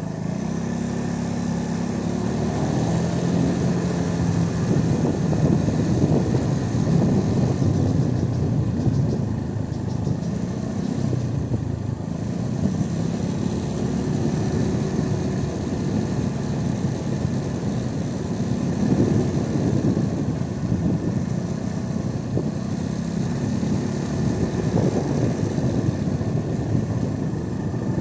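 A small vehicle's engine running steadily at riding speed, its pitch shifting a little, mixed with wind rumble on the microphone.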